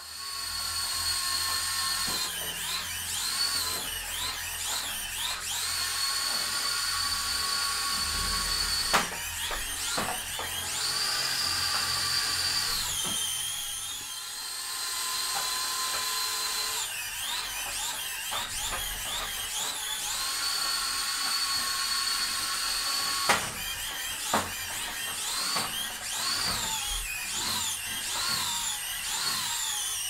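Small Pololu DC gear motors of a homemade robot vacuum running with a high whine, steady for a few seconds at a time and then wavering and shifting in pitch as the robot changes direction. A few sharp knocks come through, twice near the middle and twice later on.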